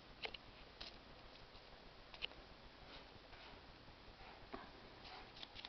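Near silence with a few faint, scattered soft clicks and rustles from a kitten moving and pawing about on cloth.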